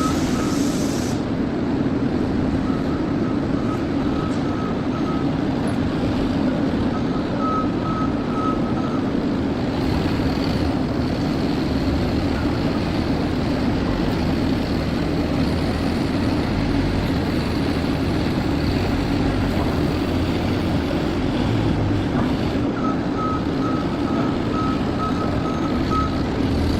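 Forklift reversing alarm beeping, a few beeps a second, in several runs that stop and start again, over a steady loud rumble of industrial machinery.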